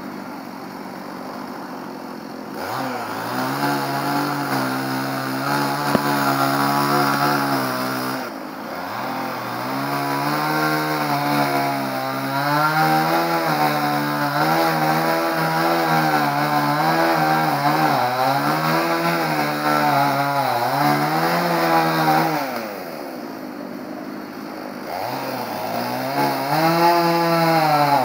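Two-stroke chainsaw cutting through fallen tree limbs: the engine idles, revs up and runs under load with its pitch wavering as the chain bites into the wood. It drops back to idle about eight seconds in and again a few seconds before the end, revving up each time.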